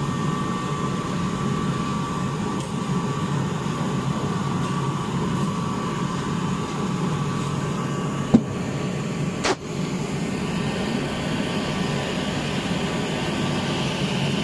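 Heat-shrink tunnel of a carton sleeve shrink-wrapping machine running: a steady blower drone with a thin steady whine over it. Past the middle there are two sharp knocks about a second apart.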